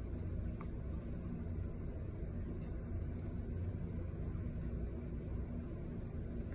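Steady low room hum with faint, scattered scratchy rubbing as fingertips blend makeup into the skin of the cheek.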